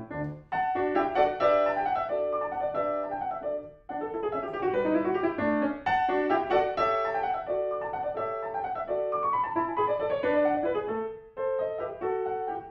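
Grand piano played solo: a quick classical passage of running notes, with short breaks between phrases about four seconds in and again near the end.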